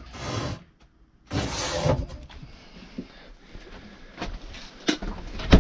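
Handling noises at a camper's under-sink cabinet. Two brief rustling swishes come first, then a few clicks and a sharp knock near the end as the cabinet door shuts.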